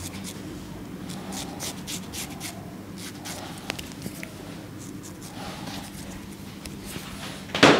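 Cut-throat razor scraping through lathered beard stubble in a string of short, scratchy strokes. A short loud burst near the end.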